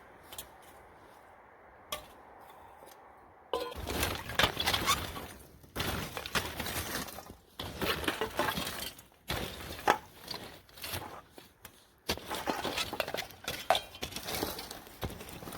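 A powerful 1,600 lb fishing magnet being dragged through fire-pit ash and burnt debris, with nails and scrap metal clinking, crunching and scraping against it. The clatter starts about three and a half seconds in after a quieter stretch and comes in several bouts with short pauses between.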